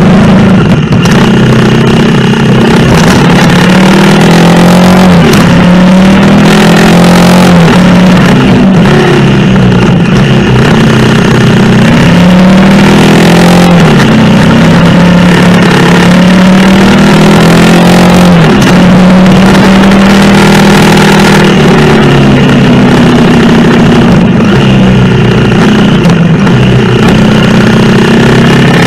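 Honda CRF250L's 250 cc single-cylinder engine pulling the bike along a climbing trail, the engine note repeatedly dropping and climbing again every few seconds as the rider works the throttle and gears, over a steady rushing noise of wind and road.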